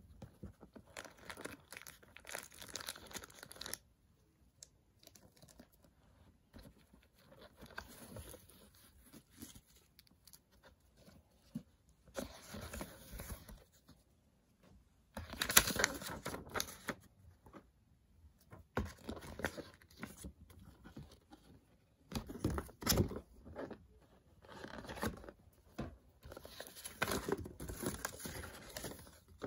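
Paper inserts and cardboard box packaging being handled and leafed through: rustling and crinkling in several bursts with short pauses between them, the loudest about halfway through.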